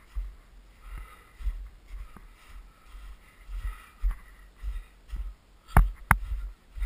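Footsteps of a hiker walking on a snowy trail, about two steps a second, heard mostly as low thumps, with two sharp knocks shortly before the end.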